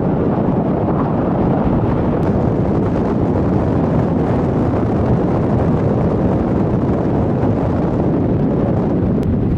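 Steady, even rush of wind buffeting the microphone on the deck of a moving cruise boat, with the boat's own running noise blended in.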